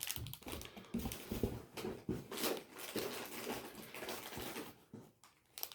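Plastic snack wrappers crinkling and rustling as packets are handled, with irregular light clicks; it goes quiet for a moment near the end.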